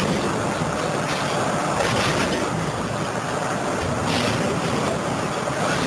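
Material handler's diesel engine and hydraulics running steadily as its scrap grapple drops a load of scrap metal into a steel container, with a few clatters about two and four seconds in.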